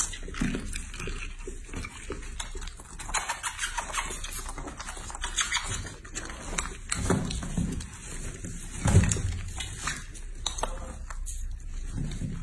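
A piglet grunting briefly a few times, short low grunts, the loudest about nine seconds in, over scuffling and small clicks.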